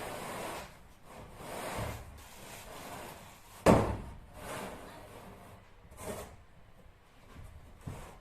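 Building materials being handled during ceiling work: scraping and rubbing, one sharp knock about a third of the way in, and softer knocks later.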